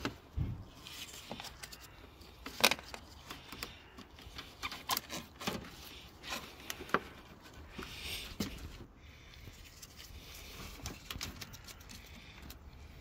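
Handling noise of a small coolant hose being pushed onto a radiator fitting and its worm-drive hose clamp worked with a screwdriver: scattered clicks, knocks and scrapes of plastic and metal, the sharpest knock about two and a half seconds in.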